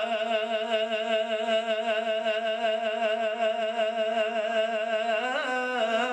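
A man's voice singing Punjabi Sufi verse. He holds one long note with an even vibrato for about five seconds, then moves into a few short melodic turns near the end.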